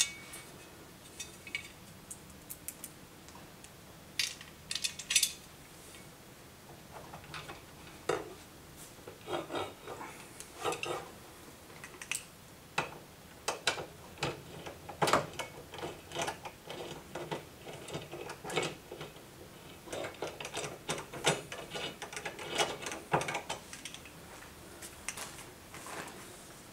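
Screws being driven by hand with a screwdriver through a metal mounting bracket, washer and spacer into the back of a TV: irregular clicks, ticks and light metal clatter in short clusters, with brief pauses.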